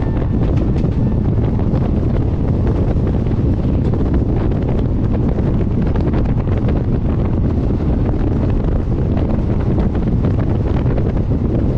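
Heavy wind buffeting the microphone held out of a moving passenger train, over the steady running rumble of the coaches on the track.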